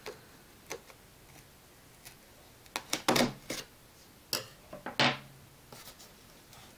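A knife cutting through the taped flap of a cardboard coin box: scattered scrapes and clicks, with a cluster about three seconds in and a sharp one about five seconds in.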